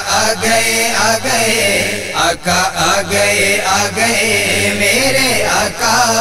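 Chanting voices holding a wavering melodic line: the vocal backing of an Urdu naat.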